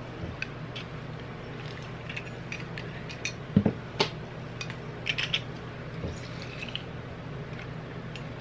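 Hand-held metal lime squeezer pressing lime halves, with squishing and juice dripping into the bowl. Scattered clicks and clacks of the squeezer, the loudest knocks about three and a half to four seconds in and again around five seconds.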